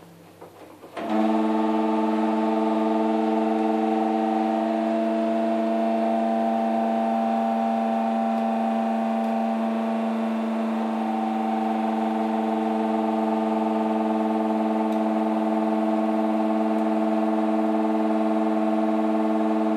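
LG F1403RD washer dryer making a really loud, steady droning hum at one constant pitch, starting abruptly about a second in; its cause is unknown to the owner.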